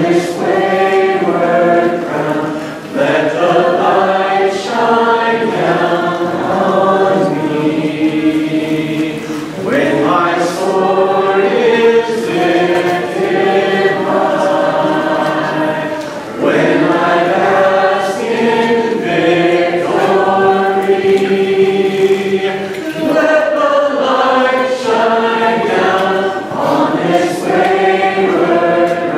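Church congregation singing a worship song together without instruments, many voices in sustained phrases with a brief breath between lines every six or seven seconds.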